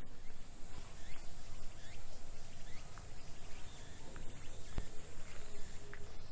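Midsummer park ambience: cicadas droning steadily with a high, even buzz, with short chirps, likely from birds, scattered over a low steady wash.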